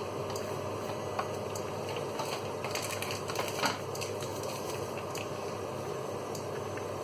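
Pans cooking on an induction hob: a steady hiss of spaghetti boiling in water, with scattered crackles and pops from chopped tomato frying in oil. A plastic-wrapped cheese pack crinkles as it is handled, with a slightly louder burst about three and a half seconds in.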